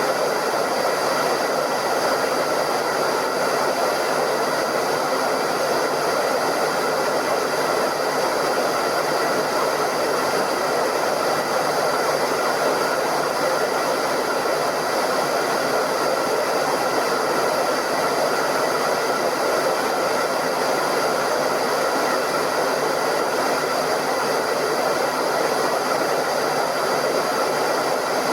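Hair dryer running steadily: an even rush of blown air, with a few faint steady high tones in it.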